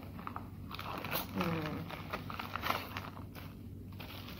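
Rustling and crinkling of a soft sunglasses pouch and its wrapping being handled as the sunglasses are taken out, in short irregular bursts.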